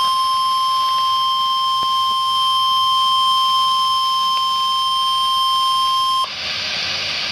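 NOAA Weather Radio 1050 Hz warning alarm tone: one loud, steady electronic beep that cuts off suddenly about six seconds in, leaving radio static hiss. The tone signals that a tornado warning is about to be read.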